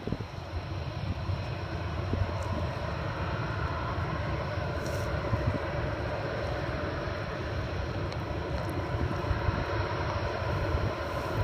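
Jet engines of a Ryanair Boeing 737 on the runway: a steady rumble with a faint whine, growing slowly louder.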